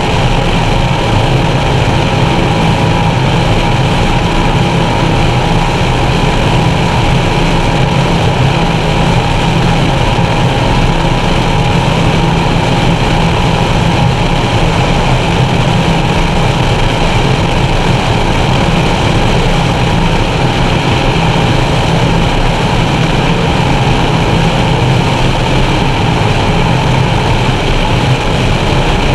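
Skater 368 offshore racing catamaran's engines running hard at racing speed, a loud, steady drone heard from inside the enclosed cockpit, with rushing wind and water noise under it.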